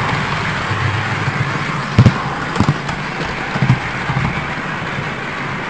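Model trains running on a club layout: a steady rolling rumble from wheels and motors on the track, with a few sharp clicks and knocks about two seconds in and again a little later.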